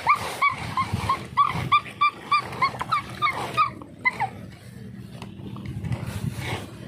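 A run of short, high-pitched animal cries, about three a second, stopping about four seconds in.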